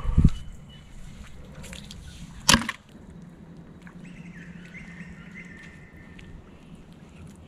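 Two hard knocks: a dull thump at the start, then a sharp crack about two and a half seconds in, the loudest sound. After that, a steady low outdoor background with a faint, thin, high call around the middle.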